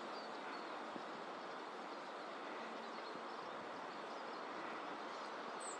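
Pale thrush giving a single short, high, thin 'jjiik' call near the end, over a steady background rush of noise.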